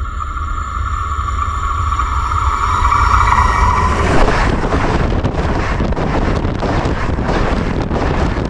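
Singing rails: a steady high ringing tone in the steel rail grows louder as a train approaches, heard through a camera resting on the rail. About four seconds in, the train reaches it and the ringing gives way to a loud rush of train wheels rolling over the rail, with rapid sharp clacks.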